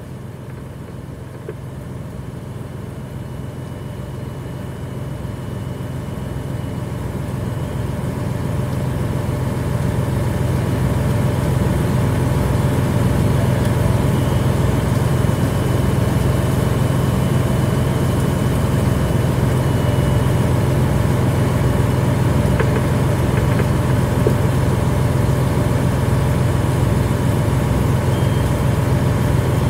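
Fire engine's engine running the water pump, growing louder over the first ten seconds or so and then holding at a steady high speed, as the pump is throttled up to charge the hose line and build pressure.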